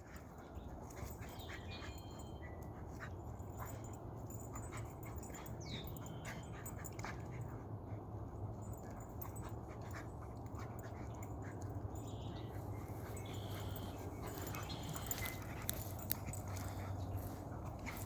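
Two dogs play-fighting, scuffling, with occasional short whimpers, over a steady low hum.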